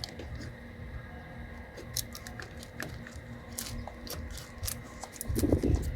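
Scattered light clicks and handling noise from hands working on wiring and connectors, with a louder rustle near the end.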